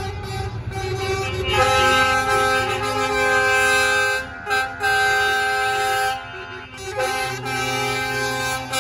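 A truck's multi-tone air horns sound a chord of several notes at once, in long blasts from about a second and a half in to about six seconds, with short breaks, and again near the end. Underneath is the low rumble of a diesel truck engine running slowly past.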